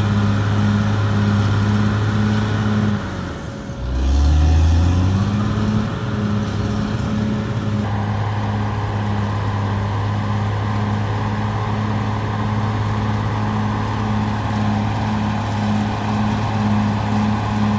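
Caterpillar D6R XL bulldozer's diesel engine running steadily under work. About four seconds in the engine pitch drops briefly, then climbs back up to its steady running speed.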